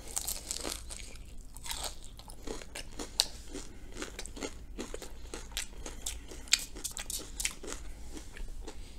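Close-miked chewing of a fried Korean potato pancake: a steady run of small crisp crunches, with a couple of louder crunches about three and six and a half seconds in.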